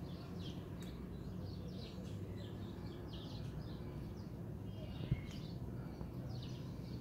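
A flock of parakeets (cotorras) chattering with many quick, short chirping calls over a steady low background rumble; a single knock about five seconds in.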